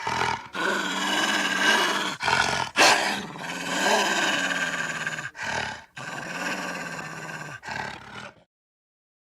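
Gray wolf growling in a run of rough, noisy stretches broken by brief gaps, cut off abruptly into silence about eight and a half seconds in.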